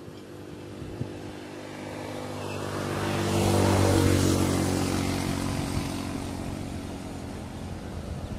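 A motor vehicle passing close by: its engine grows louder to a peak about four seconds in, then fades away.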